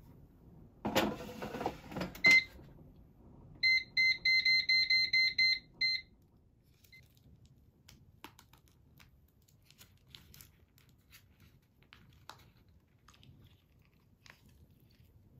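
Air fryer being loaded and set: a brief clatter as the basket goes in, then a single beep and a quick run of about ten beeps from its control panel as the temperature and timer are set.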